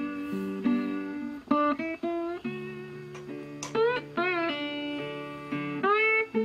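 Background music on a solo guitar: single plucked notes and chords, with a wavering bent note about halfway through and a sliding note near the end.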